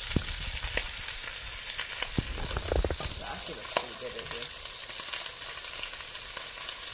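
Whole papio (juvenile trevally) pan-frying in hot oil: a steady sizzle, with a few sharp clicks scattered through it.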